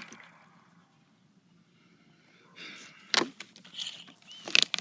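Handling noise: after a quiet stretch, brief rustling and a few sharp clicks or taps, with a short rising squeak near the end.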